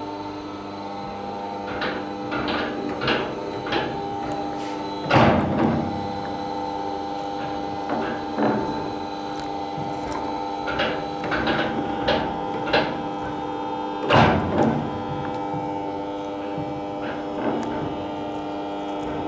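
A steady mechanical hum with irregular knocks and clatters over it, the loudest two about five seconds in and near fourteen seconds in.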